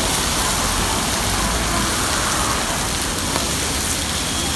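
Whole stuffed squid sizzling on a hot flat-top griddle: a steady hiss, with a low rumble underneath.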